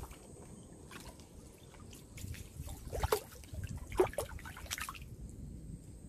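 A hooked fish splashing at the water's surface on a fishing line, with irregular splashes and drips, the loudest about three and four seconds in, settling after about five seconds.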